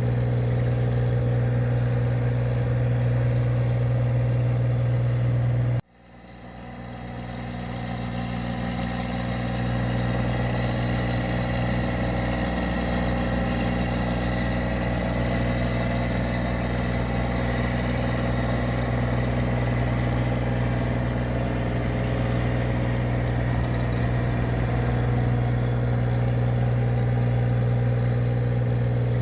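A paddy machine's engine running steadily, a low, even drone. About six seconds in the sound drops out abruptly and then fades back in over a few seconds.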